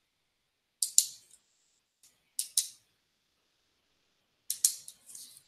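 Three pairs of sharp, high clicks, each pair a quick double click, coming about every two seconds, with a short hiss after the last pair.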